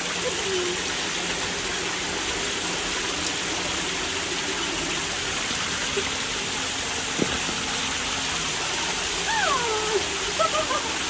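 Rows of water jets spraying from nozzles in brick walls, a steady, dense hiss of spray falling on the wet ground and on a person walking through. About nine seconds in, a voice gives a wavering, falling cry.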